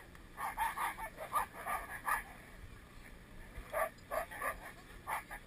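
Husky sled dogs in harness barking and yelping in two quick volleys of short, sharp calls, the eager yapping of a team waiting for the start of a race.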